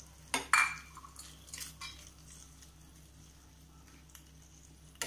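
Steel spoon clinking against a stainless-steel pan a few times as a thick curry is stirred, then a pause and one last clink near the end.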